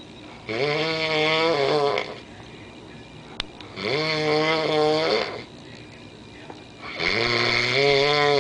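A sleeping man snoring loudly: three long, buzzing snores, each about a second and a half, coming roughly every three seconds with quiet breathing gaps between. A brief click falls between the first and second snores.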